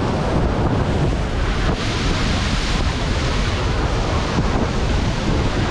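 Heavy sea surf breaking and washing over a rocky shoreline, a loud, steady churning rush, with wind buffeting the microphone.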